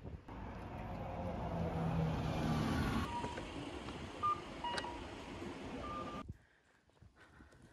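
Street traffic noise with a vehicle engine passing, then a few short electronic beeps from about three to five seconds in. The sound drops away suddenly about six seconds in.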